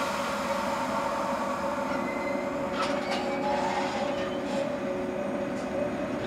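JR West 115-series electric train pulling away from the platform, giving a steady electric hum and whine, with a few short clanks about three seconds in as it gets under way.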